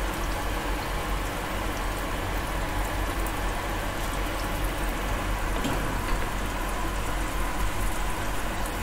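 Butternut squash slices frying in oil in a grill pan on a gas stove: a steady sizzle with small crackles.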